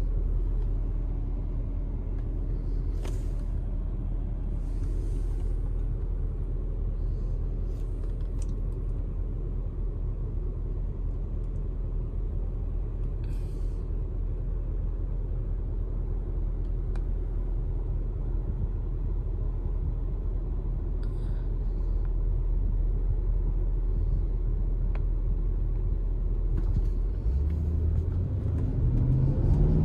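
Porsche Cayenne Turbo's twin-turbo V8 with factory sports exhaust idling steadily, heard from inside the cabin. Near the end the engine note rises in pitch and gets louder as the car pulls away.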